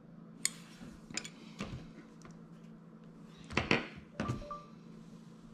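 Light clicks and taps from handling a micro quad and a metal pick tool over a silicone work mat, with the loudest knock a little over three and a half seconds in as the tool is set down. A faint steady low hum sits underneath.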